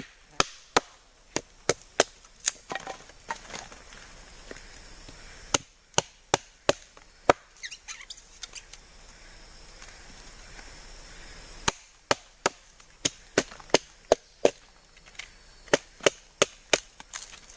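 Wood being chopped with a blade: runs of sharp strikes, several a second, with short pauses between the runs, over a steady high hiss.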